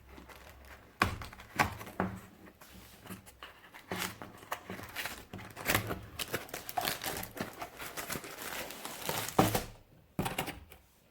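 A parcel's packaging being opened by hand: wrapping crinkling and tearing, with sharp clicks and rustles throughout and a brief pause near the end.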